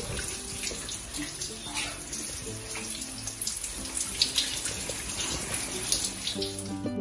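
Shower spray running steadily onto wet hair and tiles as the conditioner is rinsed out. Near the end the water stops and music comes in.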